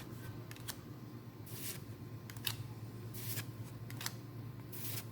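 Trading cards being slid and flipped one after another in the hand. Three short papery swishes about a second and a half apart, with a few light clicks, over a low steady hum.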